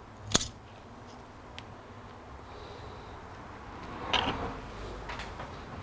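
A single sharp snap as the finned metal heatsink is pried free of the 486 CPU's thermal paste, followed by a faint tick and, about four seconds in, a short scraping rustle of handling.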